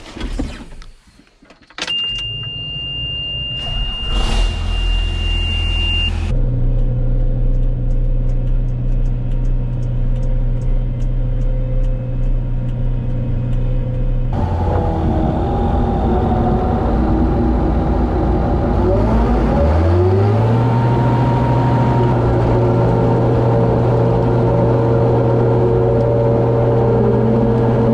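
Diesel engine of a farm machine running. A steady high warning beep sounds for a few seconds near the start. Later the engine is throttled up, its pitch rising and then holding at a higher, steady working speed.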